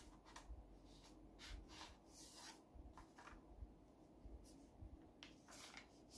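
Faint rustling and scraping of a sheet of paper being folded in half and pressed flat by hand, in short scattered strokes.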